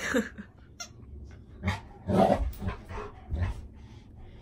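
Dog making about five short vocal sounds while holding a ball in its mouth, the loudest about two seconds in.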